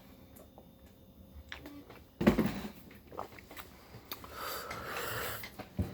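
Quiet eating noises: a sharp knock or smack about two seconds in and a few small clicks, then about a second of breathy nasal breathing or sniffing.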